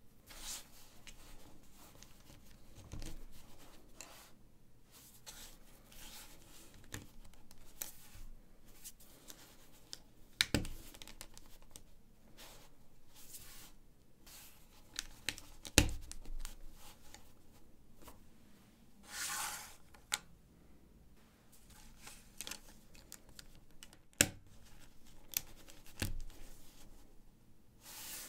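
LEGO 1×4 plates being handled and pressed together: a continual light rustle and scrape of small plastic pieces, broken by sharp clicks as plates snap on, the loudest about 10, 16 and 24 seconds in.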